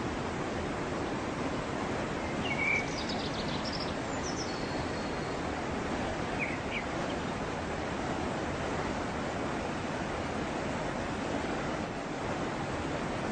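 Waterfall rushing steadily, with a few short bird chirps in the first half.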